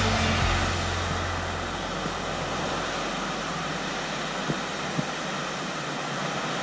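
Geyser erupting: a steady rushing hiss of steam and water. A low hum fades out over the first two seconds, and a couple of faint ticks come later.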